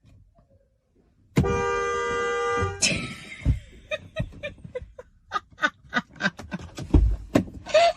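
A handheld air horn blasts once, a steady loud blare lasting about a second and a half, starting about a second and a half in. It is followed by a quick, irregular run of knocks and thumps, with a short cry near the end.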